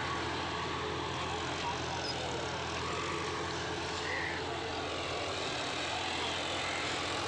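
John Deere 5405 4x4 tractor's diesel engine running steadily under load, pulling a disc harrow through tilled soil.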